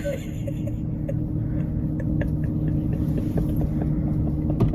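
Steady low rumble with a constant hum, a motor vehicle running, with a few faint clicks over it.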